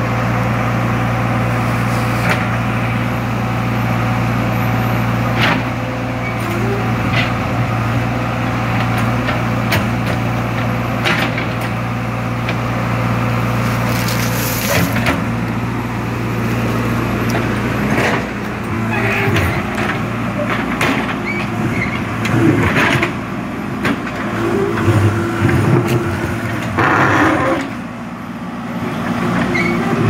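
JCB 3DX backhoe loader's Kirloskar diesel engine running steadily while the backhoe digs, with scattered clanks and knocks from the bucket working through stony soil. From about 18 seconds in, the engine note wavers under changing load and the knocks come more often.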